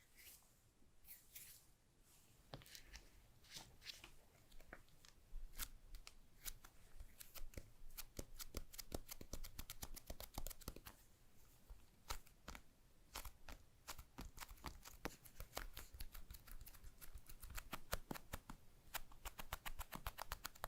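Hands handling a phone and its packaging: a string of small sharp clicks and taps, growing busier, with a quick rattle of clicks near the end.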